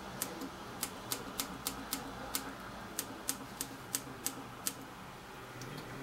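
Button presses on the ECM Synchronika's PID temperature controller: a run of about a dozen light clicks, roughly three a second, as the arrow keys step the coffee-boiler temperature setting. The clicks stop about a second before the end.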